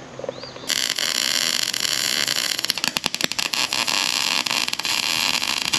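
Wire-feed welder arc hissing and crackling as a weld bead is run on a grain cart's auger. It strikes under a second in, with a few sharp pops about three seconds in.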